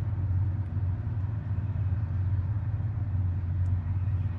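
Steady low mechanical hum of background machinery, with a faint small click near the end.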